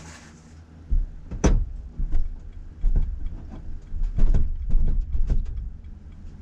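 Car cabin on the move with a steady low road rumble and a run of sharp, irregular clicks and knocks from the rear suspension area. It is the unexplained clicking that comes on over bumps, which the owner suspects may come from the coilovers.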